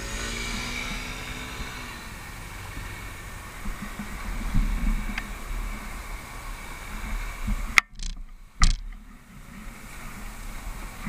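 Street traffic heard from a bicycle: cars driving past close by, with a motor scooter's small engine pulling away near the start. About eight seconds in come two sharp knocks a little under a second apart.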